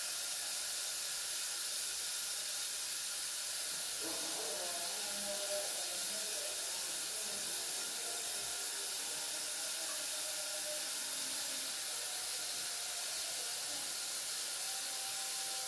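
Kitchen tap running steadily into a stainless steel pot of grapes, filling it with water: an even, continuous hiss of the stream.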